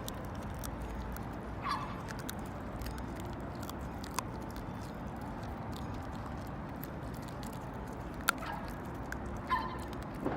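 Dog chewing a chicken-wrapped lamb flap chew, with scattered sharp crunches and clicks. A few short, high, whine-like sounds come about two seconds in and twice near the end.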